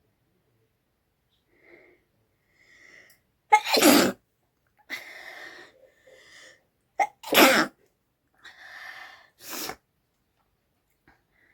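A person sneezing hard twice, about four and seven and a half seconds in, with shorter, fainter breathy sounds between and after the sneezes.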